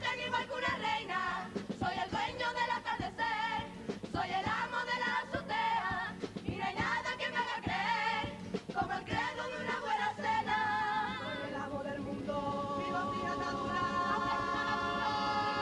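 Cádiz carnival comparsa choir singing in harmony over strummed guitars and percussion. About ten seconds in, the voices settle onto one long held chord with vibrato.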